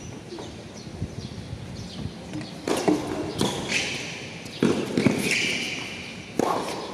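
A tennis ball being hit and bouncing on a hard court: a handful of sharp pops, the first about two and a half seconds in and the last near the end.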